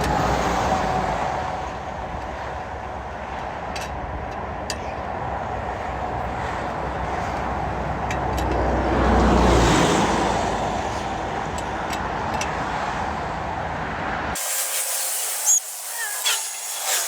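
Highway traffic rushing past, with one vehicle swelling louder and fading about nine to ten seconds in. About fourteen seconds in the sound cuts abruptly to a thinner hiss with a few short chirps and knocks.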